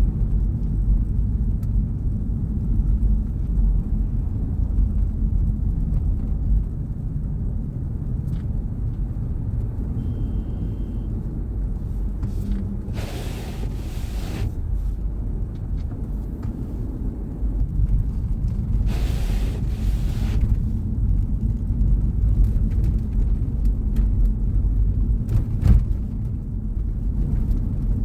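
Steady low road and engine rumble of a car being driven, heard from inside the vehicle. Two short swells of hiss come a little before halfway and again some six seconds later.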